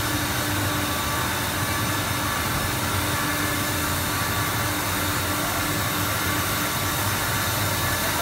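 Steady drone and hiss of machinery running on a foam mattress production floor, with a few faint steady hum tones in it and no sudden knocks or changes.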